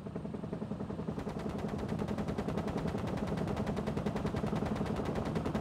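Helicopter door gun, a belt-fed machine gun, firing one long continuous burst at a rapid, even rate.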